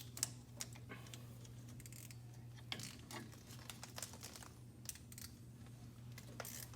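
Faint, irregular clicks and taps of hand tools and metal hydraulic quick-coupler parts being handled and snugged up, over a steady low hum.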